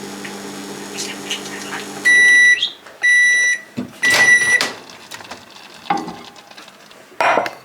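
Microwave oven running with a steady low hum that stops about two seconds in, followed by three loud beeps a second apart signalling the end of the heating cycle; then a few knocks and clatters.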